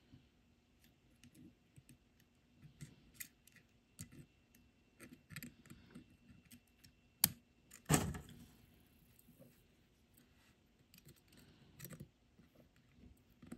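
Small clicks, taps and scrapes of metal tweezer tips and a fingertip working a new silver-oxide button-cell battery into a quartz watch movement. About seven seconds in comes a sharp click, then the loudest sound, a knock.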